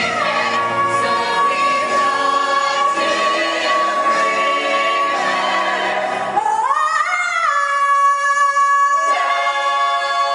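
Live show-tune climax: a woman belting a long sustained high note over an ensemble chorus and pit orchestra, with a rising swoop about two-thirds of the way through into a loud held final chord.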